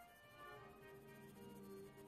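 Soft background music of bowed strings, slow held notes overlapping at different pitches.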